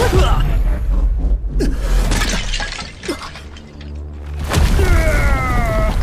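Animated battle sound effects: a sudden crashing impact with a deep rumble under it, then a second loud surge about four and a half seconds in, carrying falling tones, over background music.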